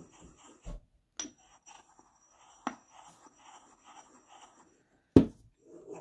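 Marble pestle grinding chalk and acrylic powder in a marble mortar: a rhythmic gritty scraping, about four strokes a second, with short pauses. Several sharp knocks of stone on stone come through, the loudest a little before the end.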